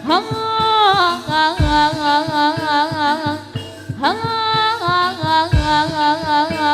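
Jathilan dance accompaniment music: a held, wavering lead melody line that dips in pitch at the start of each phrase, over a steady pattern of drum strokes.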